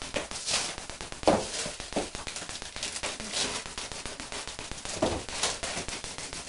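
Wrapping paper rustling in short bursts as gifts are handled, with a sharp short sound about a second in and another brief one near the end.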